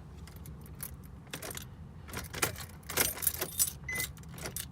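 A key ring jangling and clicking as the ignition key of a Nissan 350Z is worked, with no cranking or engine start, over a low steady hum; a short high beep sounds about four seconds in. The car is failing to start even though the battery reads good.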